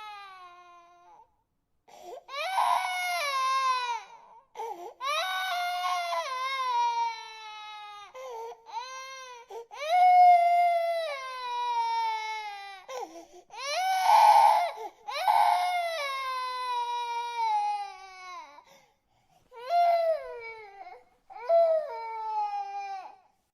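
Infant crying: a string of long wails, each sliding down in pitch, broken by short pauses for breath. The loudest, harshest cries come about halfway through.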